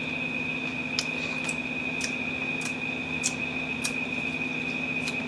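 A steady hum with faint ticks at a fairly even pace, about one every half second or so.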